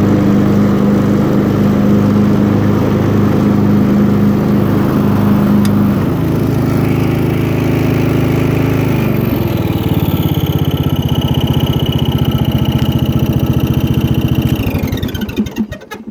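Briggs & Stratton 15.5 HP riding-mower engine running steadily, its pitch dropping about two-thirds of the way through. Near the end it is shut off and winds down to a stop.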